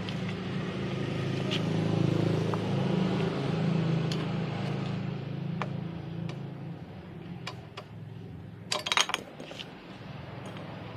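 A vehicle engine hum that swells over the first few seconds and then fades away, with scattered sharp clicks and a quick run of clicks about nine seconds in.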